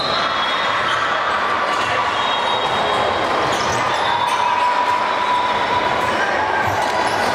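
Echoing din of a busy volleyball gym: many voices and play from several courts, with ball hits and short shoe squeaks during a rally.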